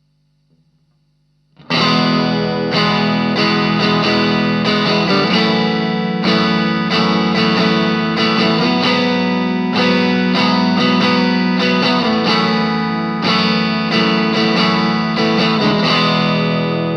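Electric guitar, a Fender Stratocaster through an Ibanez Tube Screamer Mini overdrive pedal into a Marshall MG15 amp, playing repeated strummed chords with a mild overdrive. It starts about one and a half seconds in, after a low amp hum.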